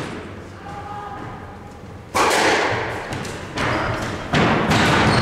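A squash rally: the ball is struck by rackets and smacks into the court walls three times, about two, three and a half and four and a half seconds in. Each impact echoes in the enclosed court.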